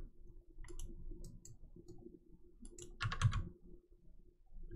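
Scattered sharp clicks of a computer mouse, a few a second at most, with a brief louder sound about three seconds in over a faint steady hum.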